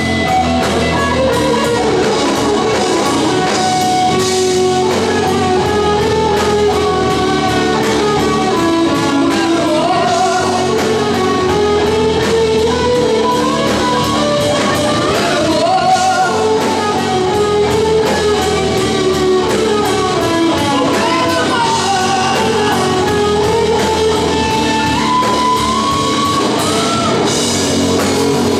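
A live hard rock band playing: a singer over electric guitars, bass and a drum kit with steady cymbal strokes, ringing in a large hall.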